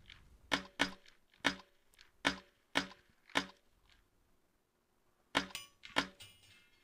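A string of sharp shots from a .22 rimfire semi-automatic rifle, about six in the first three and a half seconds, then two more after a pause of about two seconds.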